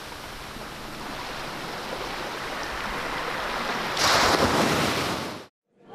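Sea surf washing steadily, building gradually, with a louder surge about four seconds in; it cuts off suddenly near the end.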